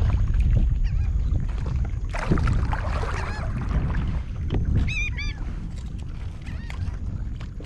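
Birds calling over the water: a short series of arched, honking calls about five seconds in, with a few fainter calls before, over a steady low rumble.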